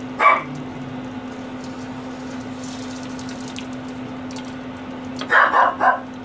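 A pet dog barking: one short bark a quarter-second in, then three quick barks near the end, over a steady low hum.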